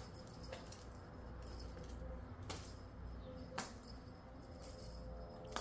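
A few faint, sharp clicks and light rattles from a kitten playing with a wand toy on a tiled floor, spaced a second or more apart, over a low steady hum.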